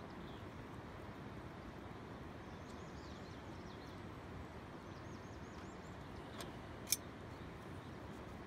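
Steady outdoor background hiss with a small bird trilling faintly twice. A sharp click about seven seconds in.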